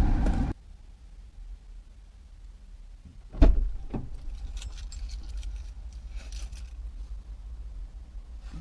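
A steady rumble cuts off suddenly half a second in. About three and a half seconds in a car door thumps, with a smaller knock just after it, followed by faint metallic jingling.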